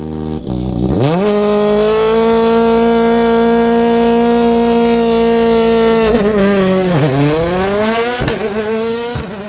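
Motor vehicle engine sound, a car or truck pulling away. It revs up, holds a steady pitch for about five seconds, drops away about seven seconds in, then revs up again.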